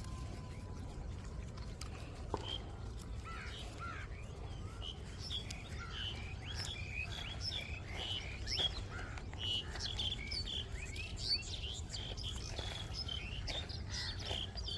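Small birds chirping: many short, quick calls, sparse at first and growing busy about five seconds in, over a steady low rumble.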